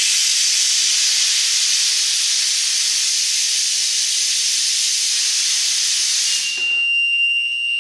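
Gas at medium pressure hissing loudly and steadily as it flows at high rate through a reset gas safety shut-off valve. About six and a half seconds in, the hiss cuts off and a steady high-pitched alarm tone starts, the gas alarm sounding as the valve shuts off the gas.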